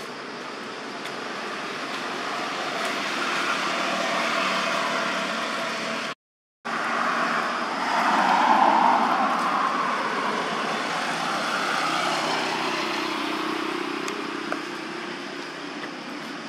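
Road traffic: passing vehicles make a steady rushing noise that swells and fades, loudest just past the middle, broken by a brief cut-out about six seconds in.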